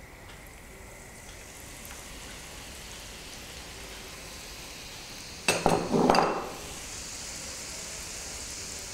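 Besan-coated peanuts sizzling in hot oil in a pan, a steady frying hiss that builds slowly as more peanuts go in. A brief loud clinking clatter comes a little past the middle.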